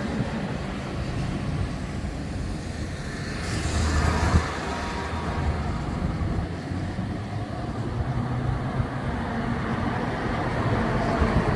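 Steady road traffic rumble, with a vehicle passing about four seconds in.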